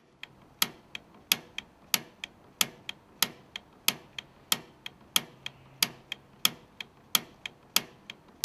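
Push-button piezo spark igniter on a Rheem Stellar gas water heater's gas control being pressed over and over, snapping sharply about every two-thirds of a second with a fainter click after each snap, as it sparks to light the pilot flame while the control knob is held down.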